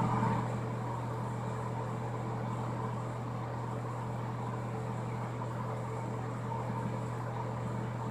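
Ceiling ventilation fan running: a steady low hum with a hiss of moving air.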